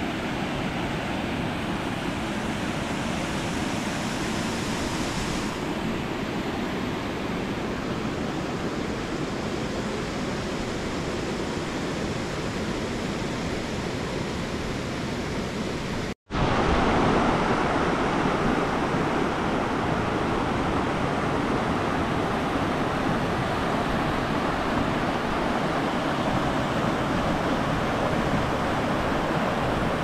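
Water from a waterfall and rapids rushing over rocks, a steady wash of noise. There is a brief break a little past halfway, after which the rushing is louder.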